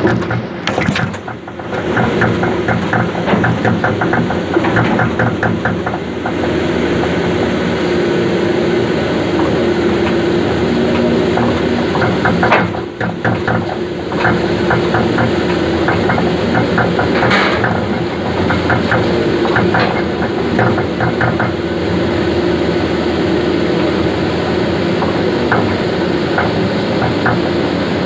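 Heavy log-handling machine with a hydraulic grapple running loud and steady, with rapid metallic clicking and clattering through its drone; the sound dips briefly twice, about a second in and again near the middle.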